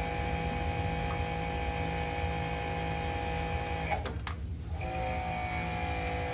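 Pressure washer running with a steady motor hum, cutting out about four seconds in and starting again under a second later.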